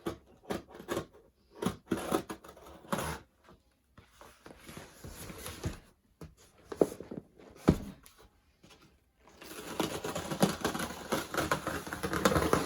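A cardboard shipping box being opened by hand. First comes a quick run of clicks and knocks, then two sharper knocks, then a few seconds of rustling as the flaps and packaging are pulled open.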